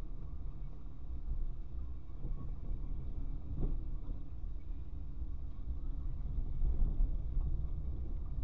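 Low, steady rumble of a car driving slowly on a narrow paved road, heard from inside the cabin through the dashcam's microphone. There is a single short knock about three and a half seconds in.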